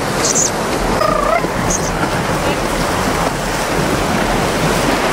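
North Sea surf rushing steadily onto the beach, with wind buffeting the microphone.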